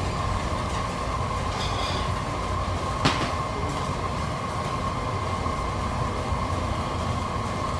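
Steady low rumbling background noise with a faint steady tone, and a single sharp click about three seconds in.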